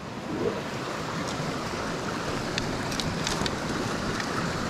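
Shallow mountain stream running over rocks: a steady rush of water, with a few faint ticks scattered through it.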